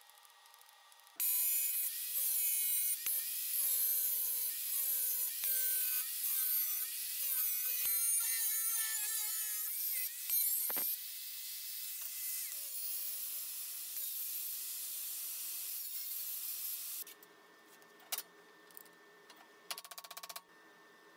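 Angle grinder with a cut-off disc cutting thin sheet steel, its whine dipping in pitch again and again as the disc bites and recovering between cuts. It starts about a second in and stops near the end, followed by a few light knocks.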